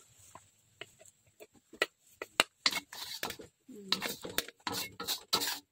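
A wooden spatula scraping and knocking against a steel wok as fried rice vermicelli is scooped out onto a plate: a run of sharp scrapes and taps, busier in the second half. A short pitched call is heard about four seconds in.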